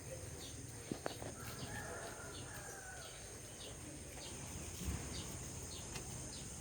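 Quiet outdoor ambience: a steady high-pitched insect drone with short bird chirps repeating every half second or so. There are a couple of faint clicks about a second in.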